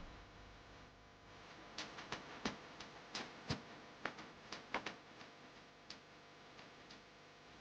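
Faint, irregular clicks and taps, about a dozen scattered over a few seconds, with no music or speech.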